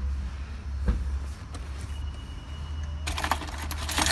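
A bunch of keys jangling in quick metallic clinks, starting about three seconds in, over a steady low hum.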